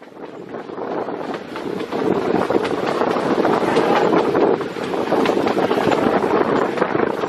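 Narrow-gauge train coach running along the track, heard at an open window: a steady rush of wheel and track noise with scattered clicks, and wind buffeting the microphone.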